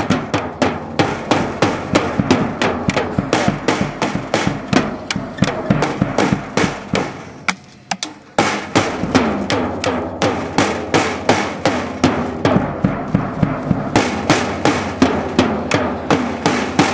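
A young girl playing a drum kit, beating out a fast run of strikes at about four a second. About halfway through the playing fades for a moment, then starts again.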